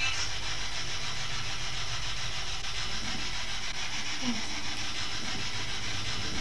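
Spirit box scanning radio frequencies: a steady hiss of static, choppy underneath, with faint snatches of sound drifting through about three to four seconds in.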